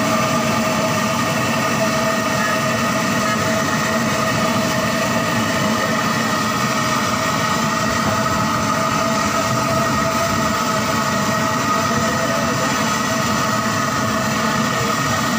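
Steady sizzling of kababs deep-frying in a large karahi of oil, mixed with a steady mechanical running hum that holds several unchanging tones.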